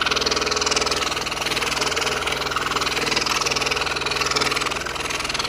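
Scroll saw running, its fine blade stroking rapidly up and down as it cuts through a thin wooden puzzle board: a steady, fast mechanical chatter.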